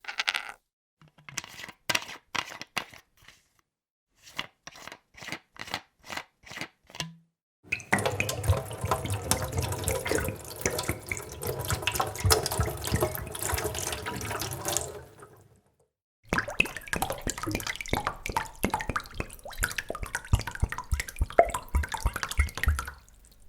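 Bottle sound effects: a series of separate short knocks and clinks for the first seven seconds or so, then two long stretches of liquid splashing and gurgling in a bottle, with a short gap between them.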